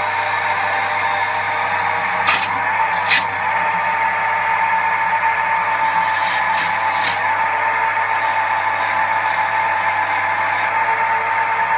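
Record wood lathe running at a steady speed while a turning tool cuts into the spinning bowl blank, with two sharp clicks of the tool against the wood about two and three seconds in.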